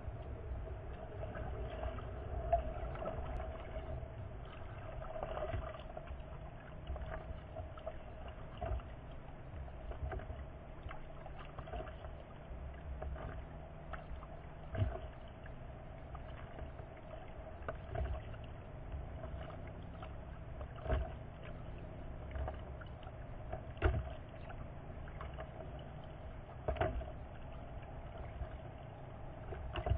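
Kayak paddling picked up by a camera on the kayak's deck: a short knock about every three seconds from the paddle strokes, over a low rumble and a steady hum.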